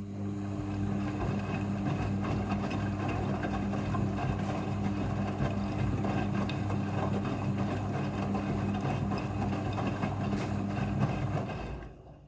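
Front-loading washing machine running in its rinse cycle: a steady motor hum with a churning mechanical noise that starts abruptly and stops about twelve seconds later.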